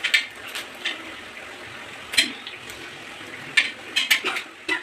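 Dried red chillies frying in oil on a tawa: a steady sizzling hiss broken by several sharp clicks.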